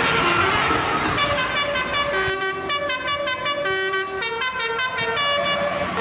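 Indonesian bus 'telolet' multi-tone musical horn playing a quick tune of short, stepped notes. The tune starts about a second in, over the noise of passing traffic.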